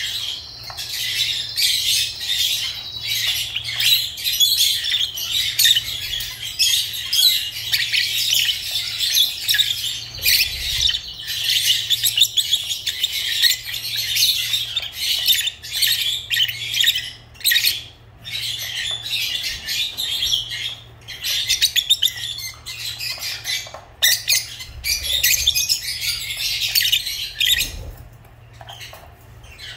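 Lovebirds chattering: a dense, continuous stream of high-pitched chirps and squawks, easing off briefly around the middle and again near the end.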